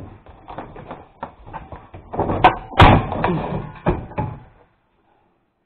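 Irregular knocks and clattering of hard parts as a stuck spin-dryer tub assembly of a twin-tub washing machine is worked on by hand. Two louder knocks come about two and a half and three seconds in, and the sound cuts off suddenly near the end.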